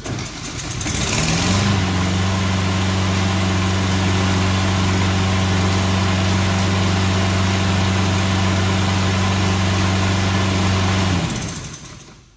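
Small gasoline engine of an AWD self-propelled walk-behind lawn mower starting, winding up to speed and running steadily on a newly fitted carburetor, the fix for its habit of dying once warm; it shuts off near the end.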